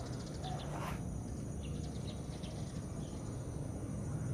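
Outdoor marsh ambience: faint insect and bird chirps over a low steady rumble, with one sharp click about a second in.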